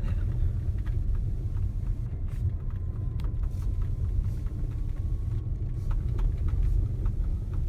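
Tesla Model S P85D driving on a snow-covered road: a steady low rumble of tyre and road noise, with scattered light ticks.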